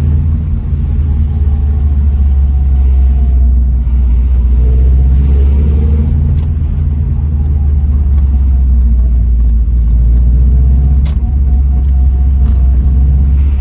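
Subaru Impreza GC8 being driven: a steady engine and road rumble with a faint, wavering high chirping squeal, like a small bird, that comes and goes. The squeal is from around the clutch. The owner puts it down to worn clutch parts that have developed play.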